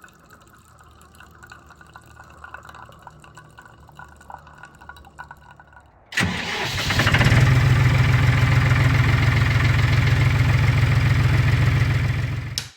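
A diesel tractor engine starts about six seconds in, builds for a moment and then runs steadily before fading out near the end.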